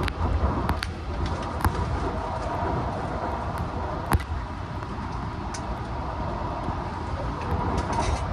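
Long Island Rail Road commuter train running at speed: a steady rumble of wheels on rails with scattered clicks and knocks, a sharper knock about four seconds in.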